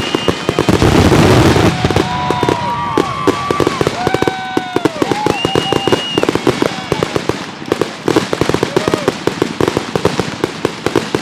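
Fireworks crackling in a dense, rapid barrage, with several rising-and-falling whistle-like tones over it.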